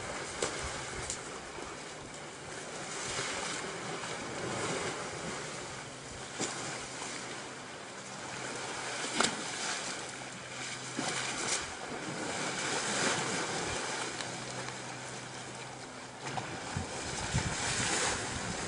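Asian elephant wading and splashing in a pond: water sloshing steadily, with sharp splashes every few seconds. Wind rumbles on the microphone throughout.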